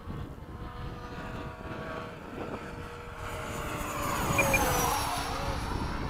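Freewing 90mm F-22 model jet's electric ducted fan whining through a fast pass: it grows louder from about halfway, peaks a little later, and its pitch falls as it goes by.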